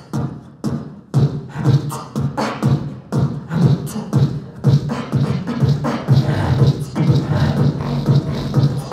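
Beatboxing into a handheld microphone: a steady drum-kit beat of vocal kick, snare and hi-hat sounds, with strong low kicks about twice a second and sharp clicks between them.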